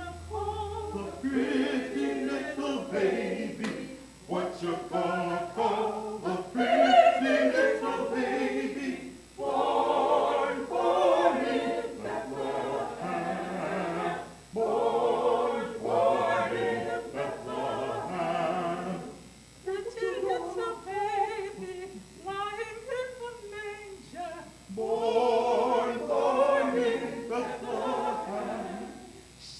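Small church choir singing a hymn together, in sung phrases separated by short breaks.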